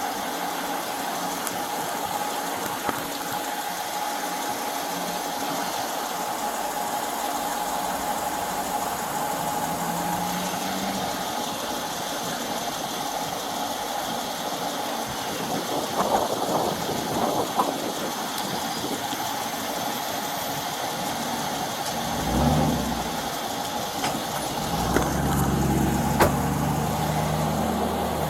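A vehicle's engine runs with a steady hum and hiss. A few light knocks come about two-thirds of the way through, and a deeper engine note swells up near the end.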